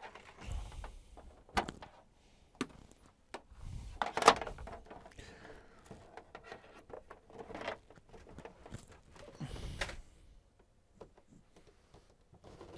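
Scattered knocks, clicks and low thuds with some rustling, as someone handles things and moves about at the workbench close to the microphone. The sharpest knock comes about four seconds in, and it goes quiet after about ten seconds.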